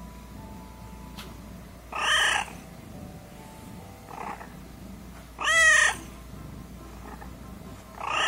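Domestic cat purring steadily while being stroked, and giving three short meows about three seconds apart, the middle one the loudest, with a faint chirp between the first two.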